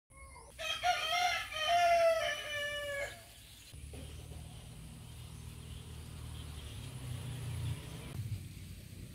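A rooster crowing once, a single long call of about two and a half seconds, followed by a steady low rumble.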